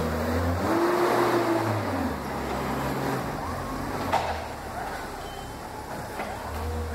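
Propane-fuelled Yale forklift's engine running as the truck drives and manoeuvres, its pitch shifting in the first couple of seconds. A short whine comes about a second in, and there is a single sharp click about four seconds in.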